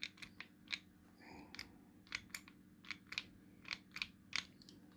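Faint sharp clicks and light scrapes, about a dozen irregularly spaced, as the bent legs of a DIP IC chip are pressed and worked straight in a pin-straightening tool.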